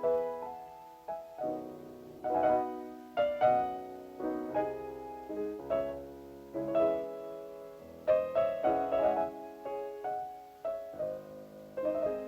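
Piano music: short phrases of quickly struck notes and chords, each group ringing and fading before the next.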